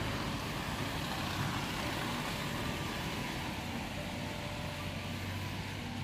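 Cars and a van driving slowly along a snow-covered street, making a steady rush of engine and tyre noise.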